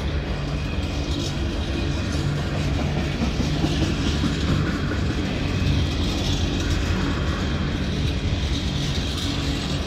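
Empty coal hopper wagons rolling past at close range, their steel wheels rumbling and clattering steadily on the rails.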